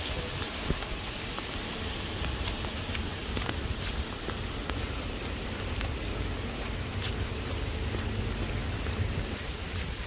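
Heavy rain falling on pavement and grass: a steady hiss with scattered sharp ticks of single drops.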